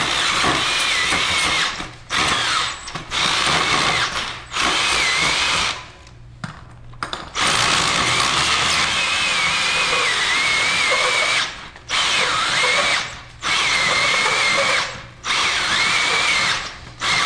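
Cordless drill spinning a 4-inch hole saw that cuts into a PVC toilet closet flange. It cuts in a string of short runs with brief pauses between them, and one longer pause about six seconds in. Its whine wavers in pitch as the speed changes.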